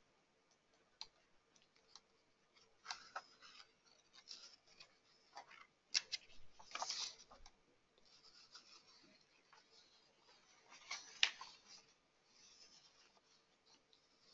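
Faint scattered clicks and short scratchy rustles, the loudest about six and eleven seconds in, over a faint steady hum.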